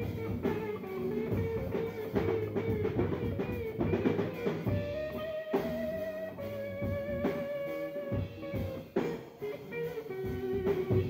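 Live band playing an instrumental passage: electric guitar lead with long held, wavering and bending notes over bass guitar and a drum kit.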